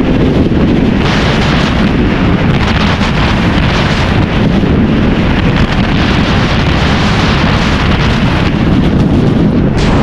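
Loud, steady wind noise rushing over the microphone of a sportbike riding at highway speed.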